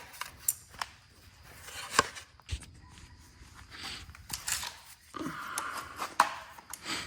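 Scattered clicks, knocks and scraping of hands working on a stripped-down motorcycle, with a dull thump about two and a half seconds in and longer scraping or rustling toward the end.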